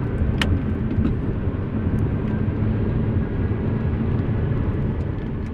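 Engine and road noise inside the cabin of a turbocharged Audi A4 being driven, with its freshly rebuilt engine being run in. The rumble is steady, with one sharp click about half a second in.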